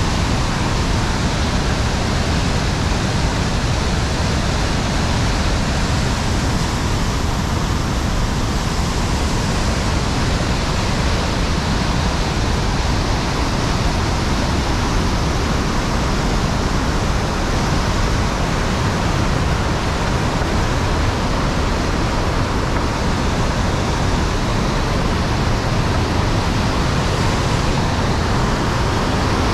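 Ohiopyle's Main Falls on the Youghiogheny River in heavy flow, whitewater pouring over a rock ledge: a loud, steady rush of falling water.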